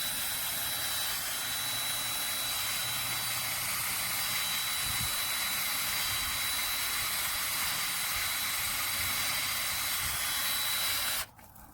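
Electric drill running steadily, driving a drill-powered grease gun adapter that pumps grease into a trailer wheel bearing, with a constant high whine; it stops suddenly near the end.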